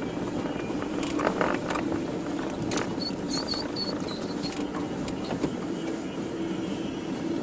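A 4x4's engine idling steadily, heard from inside the cabin, with a few knocks in the first three seconds and a short run of about five high chirps near the middle.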